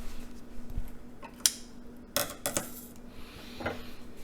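Kitchen handling noise: several separate light clicks and knocks of items such as dishes and utensils being moved and set down on a counter, over a faint steady hum.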